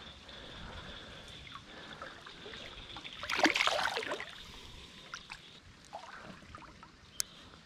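A short burst of water splashing about three and a half seconds in, over the trickle of a creek. A faint steady high-pitched tone runs underneath and stops shortly after the splash.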